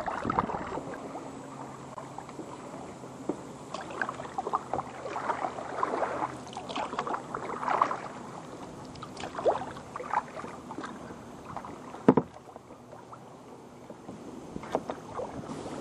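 Kayak paddling: irregular splashes, drips and gurgles of paddle blades in the water around the hull, with one sharp knock about twelve seconds in.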